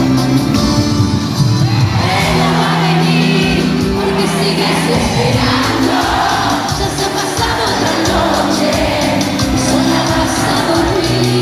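Loud cumbia music with a voice singing over steady bass notes, and crowd voices mixed in.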